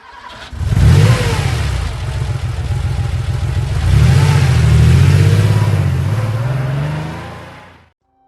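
Motor-vehicle engine revving, its pitch rising and falling in two surges, then dying away about a second before the end.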